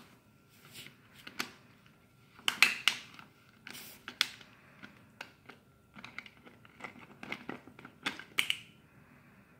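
Thin disposable plastic water bottle crinkling and clicking in irregular bursts as it is gripped and nudged, the loudest crackles about two and a half, four and eight seconds in.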